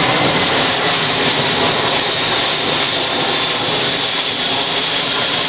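Loud jet noise from a C-17 Globemaster III's four turbofan engines as the aircraft flies past overhead. A high whine within it slowly falls in pitch as the jet moves away.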